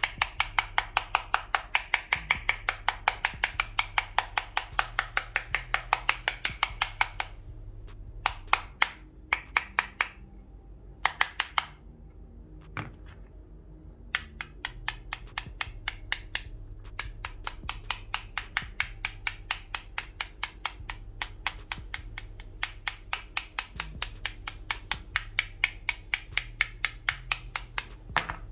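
Metal tool tips scraped back and forth across a smartphone's glass screen in quick, even strokes, about four to five a second, with a few short pauses between bouts.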